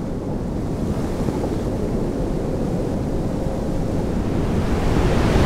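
Rushing wind noise, growing steadily louder.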